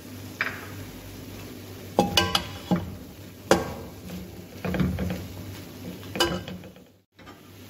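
Slotted metal spatula stirring and tossing chicken and capsicum in a metal wok, with irregular clinks and scrapes of metal on metal, several sharp knocks a second or so apart.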